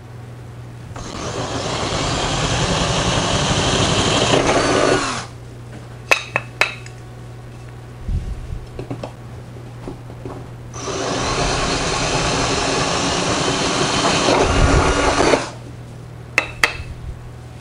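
Handheld electric drill run twice, about four seconds each time, its bit cutting into an aluminum diecast box; each run builds up and then stops abruptly. A few sharp clicks from the box being handled come between the runs and near the end.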